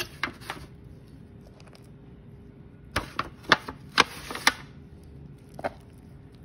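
Pork ribs being set into a disposable aluminium foil pan: scattered clicks and crinkles of the thin foil, with a quick cluster of them about three to four and a half seconds in.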